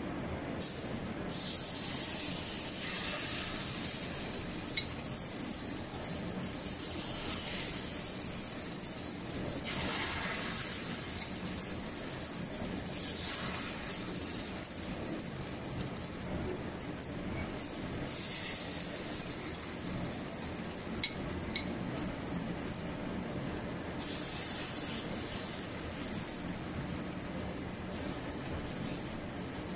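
Corn fritter batter sizzling as it fries in oil in a wok. The sizzle surges several times and settles back, as fresh batter goes into the hot oil.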